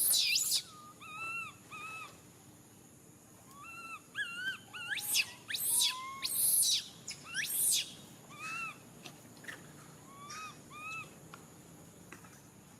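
Baby monkey crying out: loud, shrill screams that sweep sharply upward, heard at the start and in a cluster about five to eight seconds in. Between them come shorter, softer, rising-and-falling whimpering calls.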